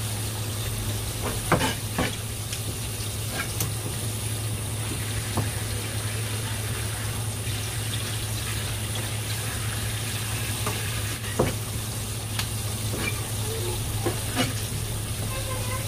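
Steady hiss of a fine water spray running onto a cutting board over a steady low hum, with a dozen or so short, sharp taps and scrapes of a kitchen knife on the board as cutlassfish is filleted.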